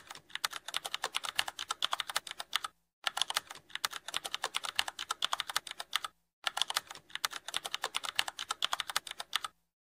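Computer keyboard typing sound effect: a fast run of keystroke clicks, pausing briefly about every three seconds.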